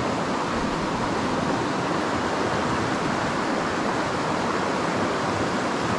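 River water rushing steadily, an even hiss of flowing current.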